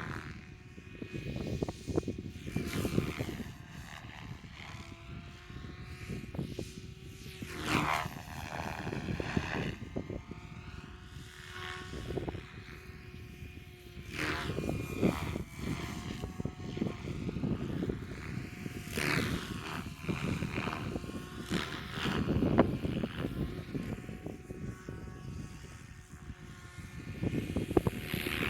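Radio-controlled helicopter flying, its whine rising and falling in pitch again and again as it manoeuvres and passes. Wind buffets the microphone in gusts with a low rumble.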